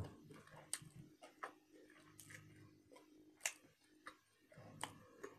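Near silence, broken by a handful of faint, short mouth clicks as food is chewed and swallowed with the mouth closed.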